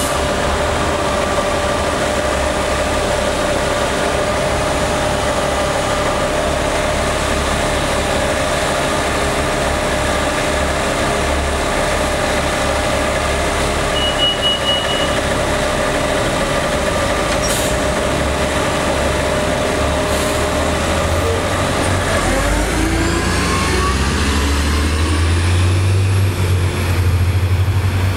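A New Flyer low-floor transit bus idling at the curb with a steady engine drone, and a short high beeping about halfway through. Near the end it pulls away, its engine and transmission whine rising in pitch as it speeds up.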